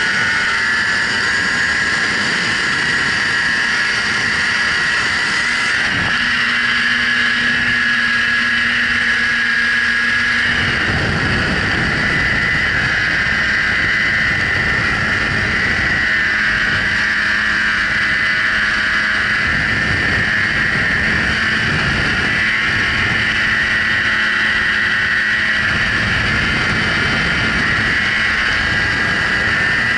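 Snowmobile running steadily under way, heard on board, with engine and track noise and a constant high whine.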